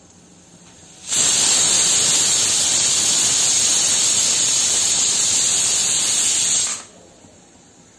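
Stovetop pressure cooker whistling: the weight valve lifts and steam hisses out hard for about five and a half seconds, starting about a second in and cutting off sharply. This is the cooker venting at full pressure, one of the whistles used to time the cooking.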